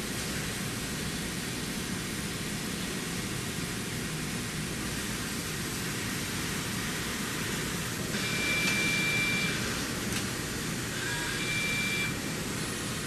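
Large gantry milling machine running with a steady mechanical hum. A high-pitched whine rises over it for about a second and a half some eight seconds in, and briefly again near the end.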